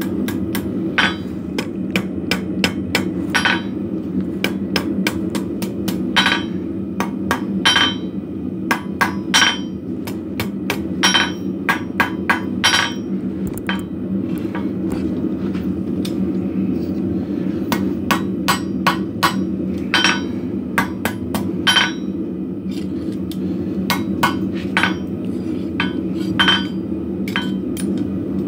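Hammer blows forging a steel hook blank on an anvil. The strikes come at an irregular pace: some single heavy blows, some quick runs of lighter taps. A steady low hum runs underneath.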